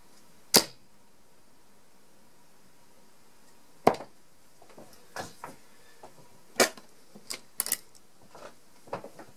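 25 g tungsten darts (Unicorn Barneveld Phase 5 Purist) striking a bristle dartboard: three sharp thuds about three seconds apart, followed by a run of lighter clicks and taps near the end.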